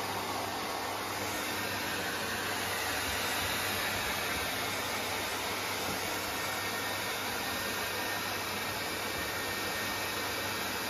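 Hair dryers, a floor-standing pet blower with a flexible hose and a handheld hair dryer, blowing air steadily as they dry a freshly bathed dog's wet coat. The rush of air is even throughout.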